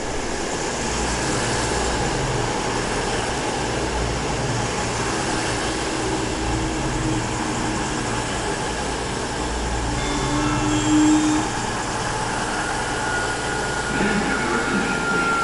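Bombardier Voyager diesel-electric multiple unit passing slowly along a platform: its underfloor diesel engines run and its wheels rumble on the track. There is a brief louder tone about ten seconds in and a thin, slowly falling whine near the end.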